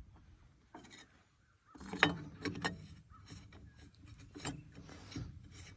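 Chainsaw parts being handled: after a quiet first second or so, a run of scattered clicks and knocks with some rubbing, as of hard parts being moved and fitted.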